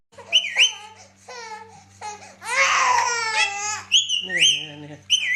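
A parrot's high, squeaky calls and babbling that sound like a baby crying, with rising chirps and a longer wavering cry about halfway through. A steady low hum runs underneath.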